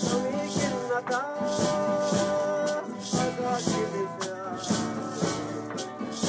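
Music with a steady rattling shaker rhythm over a pitched melody.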